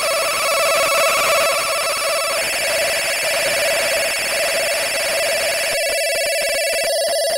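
Hand-built analog noise machine putting out a loud, steady warbling electronic tone with a buzzy, many-layered upper register. Its timbre changes abruptly about two and a half seconds in and again near six seconds.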